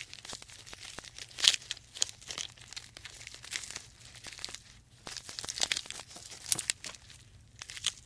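A giraffe browsing in thorny branches: irregular crackling, snapping and tearing of twigs and leaves, with a few sharper snaps.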